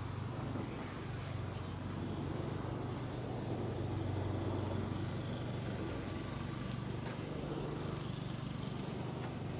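Steady low mechanical hum, like a running motor, over outdoor background noise, swelling slightly midway.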